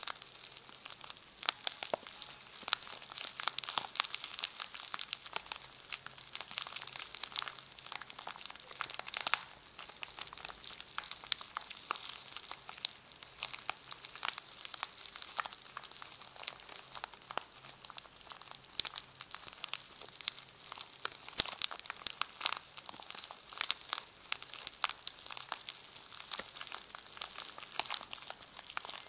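Packaging around a brush being crinkled and handled: a continuous run of dense, irregular crackles.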